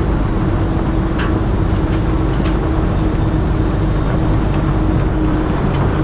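Semi-truck's diesel engine running and tyre and road noise heard inside the cab while driving slowly on a gravel road: a steady low rumble with a constant hum. A couple of light clicks come about one and two and a half seconds in.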